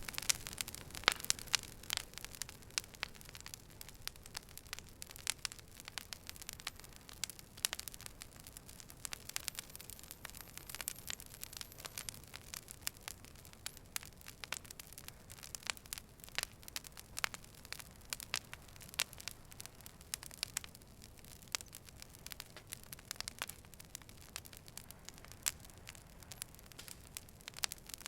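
Wood fire burning with irregular, sharp crackles and pops over a faint hiss.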